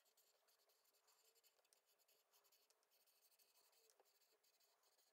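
Very faint rubbing and squeaking of a whiteboard marker's felt tip on a dry-erase board, in quick repeated up-and-down strokes as a row of joined letter n's is written.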